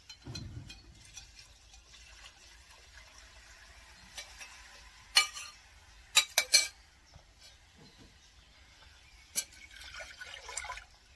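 Spoon stirring in a small metal cup of vegetable broth, with a few sharp clinks of metal on metal. Near the end comes a rush of liquid as the broth is poured into the Dutch oven.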